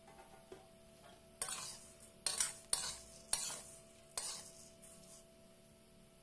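Metal spatula scraping and stirring semiya (vermicelli) in a metal kadai as it roasts in a little ghee: about five short scrapes against the pan, starting about a second and a half in.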